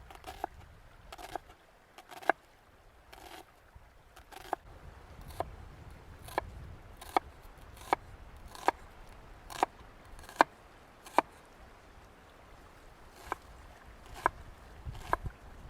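Knife chopping on a wooden cutting board: single sharp cuts about once a second, with a short pause near the end, over a faint low rumble.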